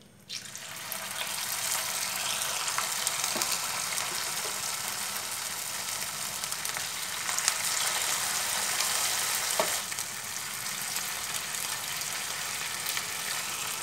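Batter-coated cauliflower pieces deep-frying in hot coconut oil: a steady sizzle that starts as the batter drops into the oil, while a spoon stirs the pieces.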